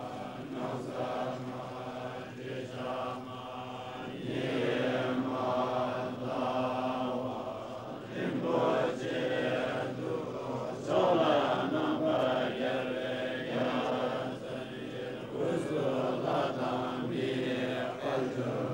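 Tibetan Buddhist monks chanting together: many voices on a steady low drone.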